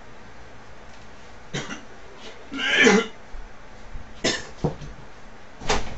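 A person coughing and clearing their throat in short fits, the loudest and most voiced about three seconds in.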